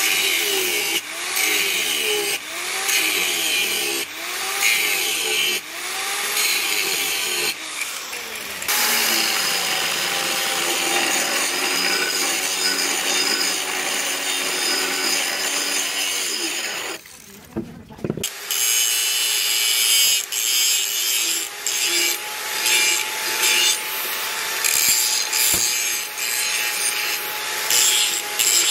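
Electric angle grinder grinding the steel of a leaf-spring machete blade. Its motor pitch dips and recovers in short repeated passes at first, then runs in a steadier grind. The sound breaks off for about a second a little past halfway, then resumes with a steady motor whine and stop-start grinding contact.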